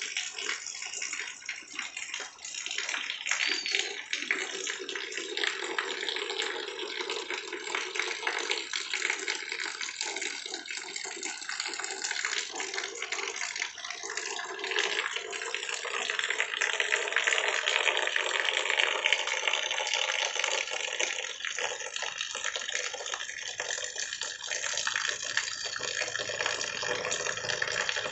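Heavy rain falling steadily, a dense hiss of drops that grows louder about halfway through as the rain picks up again.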